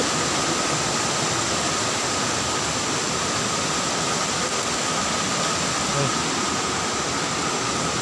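Rocky forest river rushing over rapids: a steady, even roar of water that does not change.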